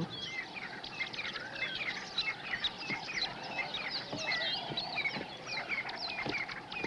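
A chorus of birds chirping and calling, many short quick chirps overlapping, with a few faint knocks.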